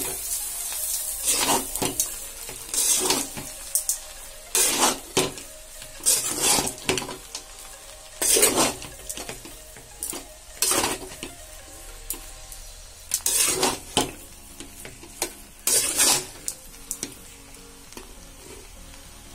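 Metal ladle scraping and stirring cooked coconut rice in a metal kadai, with irregular scrapes about once a second that stop near the end.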